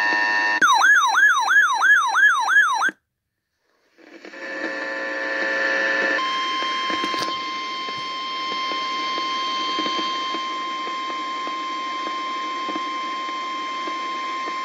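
Weather alert radio sounding its warbling electronic alarm siren, about three sweeps a second, for just over two seconds, then cutting out. After a second of silence the received broadcast comes back with a hiss, and about six seconds in the NOAA Weather Radio 1050 Hz warning alarm tone starts and holds steady, announcing an incoming warning.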